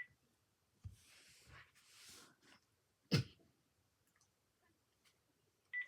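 Handling sounds from a Panasonic KX-PRW120 cordless handset as its menu is worked: a soft thump, a faint hiss, then a sharp click about three seconds in. Near the end comes a short high key-press beep.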